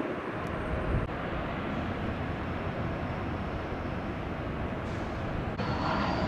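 Steady rumble of vehicle traffic, rising slightly near the end.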